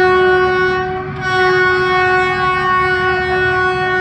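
Horn of an approaching RGE-24 diesel locomotive sounding one long, steady blast that eases briefly about a second in and then comes back full, a warning to people on the track.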